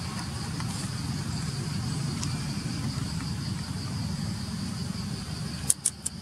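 A steady, faintly pulsing high insect buzz over a constant low rumble. Near the end, three sharp clicks come in quick succession and are the loudest sounds.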